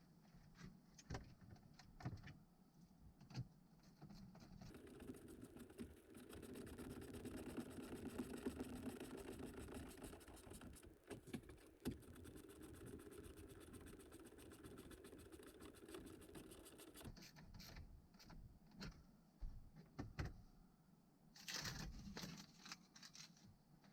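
Faint clicks and knocks of plastic dash trim and small screws being handled and refitted, with a faint steady whirring noise running for about twelve seconds in the middle.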